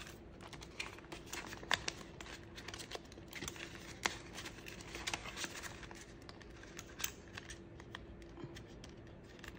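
Paper banknotes rustling and a clear plastic binder pocket crinkling as a stack of bills is handled and slid into it, with many small scattered clicks, over a faint steady hum.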